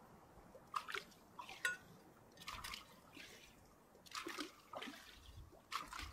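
Small wind-driven waves lapping and splashing against a concrete dam edge, in short irregular slaps a second or so apart.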